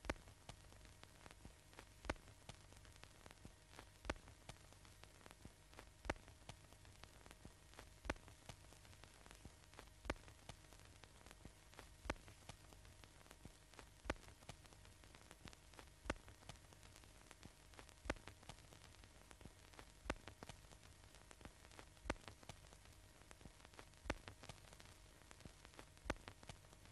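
Near silence: faint hiss and steady hum with a sharp click about every two seconds and lighter crackle in between, the background noise of an archival film soundtrack.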